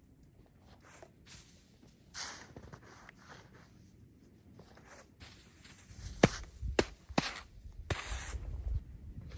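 Crunching and rustling of movement in snow, sparse and soft at first. Over the last few seconds it turns busier, with a few sharp snaps over a low rumble.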